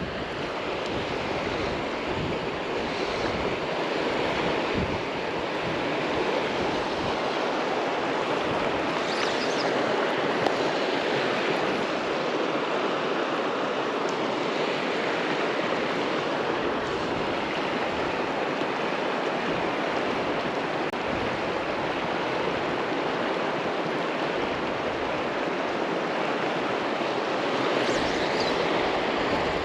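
River water rushing steadily over rocks in a continuous, even rush.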